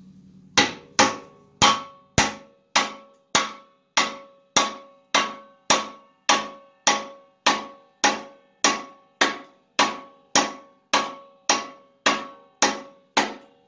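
Steady hammer blows, nearly two a second, driving a new upper trailing arm bushing straight into its bracket on a GM four-link rear axle housing; each blow rings briefly.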